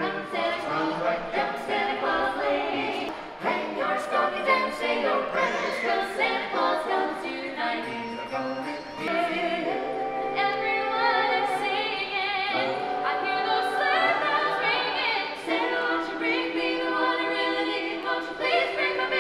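Christmas carolers, a quartet of men's and women's voices, singing a carol in close harmony a cappella, with vibrato on the held notes and short breaths between phrases.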